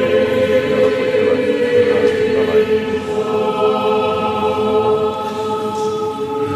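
Choir singing Romanian Orthodox liturgical chant unaccompanied, holding long sustained notes that move to a new chord about three seconds in.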